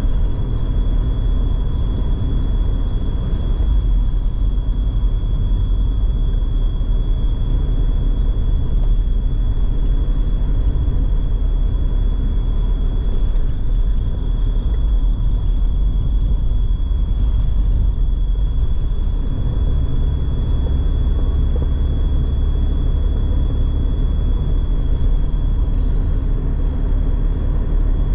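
Steady low rumble of a vehicle travelling on the road, with a thin constant high-pitched tone running through it.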